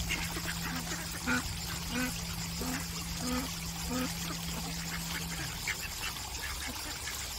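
Mallard ducks quacking: a run of about five short, low quacks roughly two-thirds of a second apart, over water trickling.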